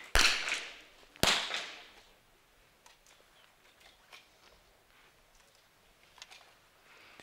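Two small-bore .22 target rifle shots about a second apart, each a sharp crack with a short echo trailing off in the indoor hall, followed by a few faint clicks.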